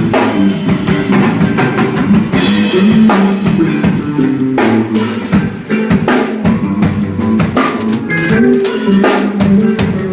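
A band playing rock: a drum kit keeping a steady beat over an electric guitar played through the overdrive of a Tech 21 Fly Rig 5 pedal.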